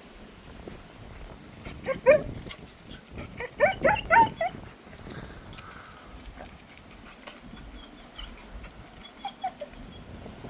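A dog giving short, high yips, two about two seconds in, a quick run of four or five around four seconds, and a few fainter ones near the end.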